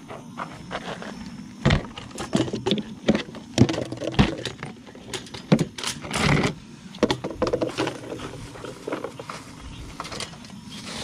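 Irregular knocks, clicks and rustles of gear being handled: a plastic cooler and its lid being moved and knocked about.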